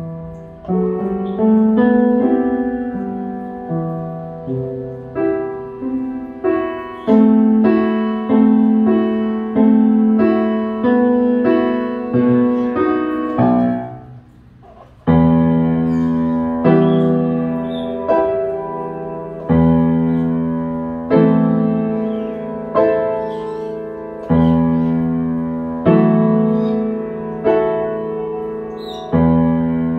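Upright piano playing a piece in chords, each struck about once a second and left to ring and fade. About halfway through it stops briefly, then comes back louder with deep bass chords.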